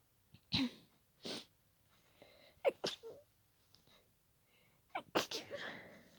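A person stifling a fit of sneezes: several short, sharp, held-in sneezes a second or two apart, with breaths between them.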